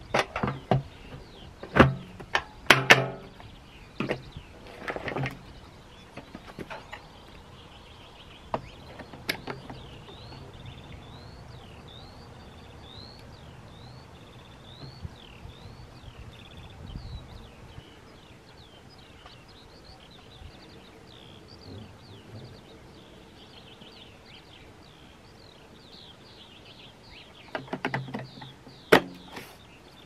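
Hard plastic clicks and knocks from the unpowered Kärcher AD 4 Premium ash vacuum's motor head and housing being fitted and latched together, in a cluster over the first few seconds and again near the end. In between, a bird chirps over and over in the background.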